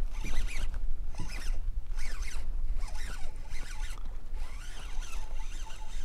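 Baitcasting reel whirring in short repeated bursts, about once a second, while a hooked speckled trout is fought, over a steady low wind rumble on the microphone.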